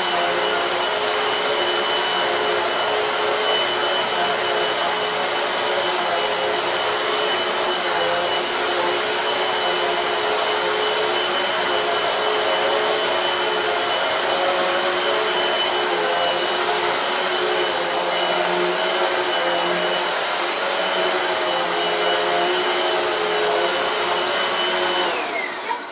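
Hoover WindTunnel MAX bagged upright vacuum cleaner running with a steady, loud motor whine. Near the end it is switched off and the whine falls as the motor spins down.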